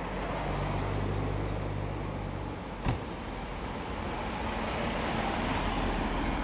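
Two Mini cars drive slowly past in turn. First a Mini convertible passes with a steady low engine hum. Then a Mini Paceman's engine and tyre noise builds as it passes close, with a single sharp click about three seconds in.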